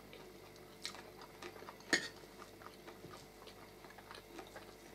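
Faint chewing and light clicks of forks and spoons against plates, the sharpest click about two seconds in.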